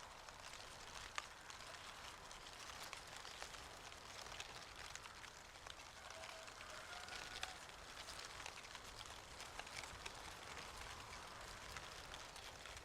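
Falling leaves rustling and pattering: a faint, even crackle of many small ticks.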